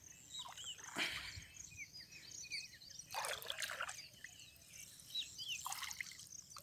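Water dripping and trickling off a wet gill net as it is lifted out of the water, many small drops plinking onto the surface. Brief splashes come about a second in, around three seconds in (the loudest), and near the end.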